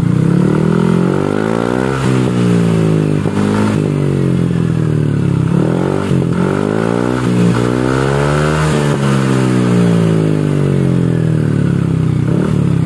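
Yamaha NMAX scooter's single-cylinder four-stroke engine revved up and back down several times, breathing through its stock muffler that has been gutted and refitted with a wider 38 mm pipe and a new baffle filter. The note is deep and not too noisy.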